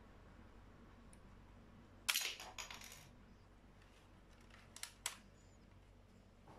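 Plastic LEGO rubber-band gun mechanism snapping with a sharp click about two seconds in, followed by about a second of rattling clicks. Two lighter plastic clicks come a couple of seconds later as the gun is handled.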